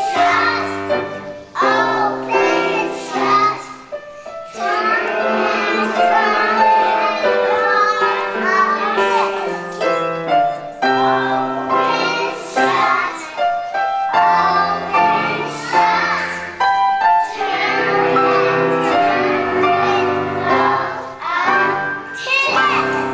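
Children singing a song with piano accompaniment.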